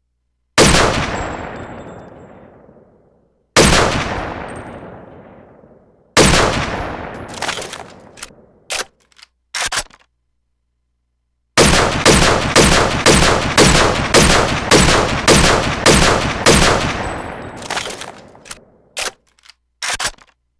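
Walther WA 2000 sniper rifle firing, as a sound effect. Three single shots each ring out with a long fading echo, followed by a few short clicks, then a rapid string of about a dozen shots at roughly two a second, and a few more clicks near the end.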